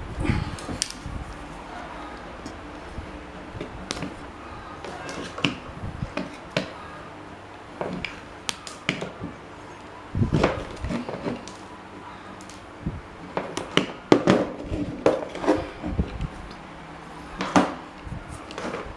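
Hand work on parts and tools: irregular knocks, clicks and clinks of hard objects being handled and set down, over a steady low hum.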